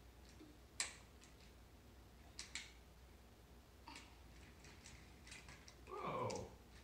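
Light, scattered clicks and taps of toy train cars being pushed along and knocked against a wooden train track, the sharpest one about a second in. A short louder sound falling in pitch comes near the end.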